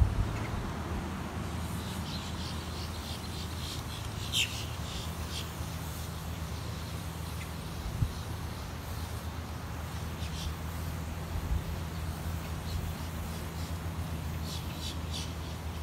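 Outdoor ambience: a steady low mechanical hum, with scattered short high-pitched chirps coming and going over it.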